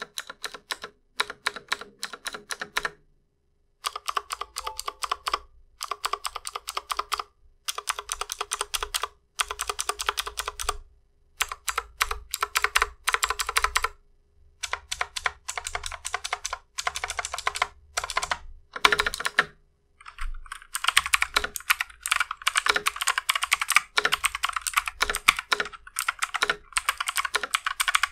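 Armaggeddon MKA 2C Pro mechanical keyboard with clicky blue switches being typed on in bursts of rapid keystrokes with short pauses between them, turning into continuous fast typing about two-thirds of the way through. Its stabilizers, scratchy as stock, have been lightly modified to sound better.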